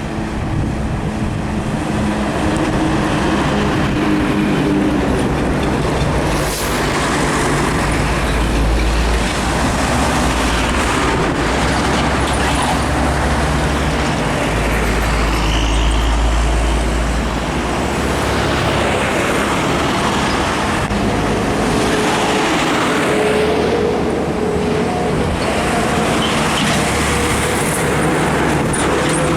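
Heavy trucks passing on a busy highway: diesel engines running and tyre noise. A deep low drone marks the passes about 7 and 15 seconds in.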